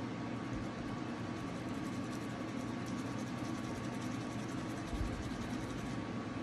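Steady hum and hiss of a running household appliance, unchanging throughout.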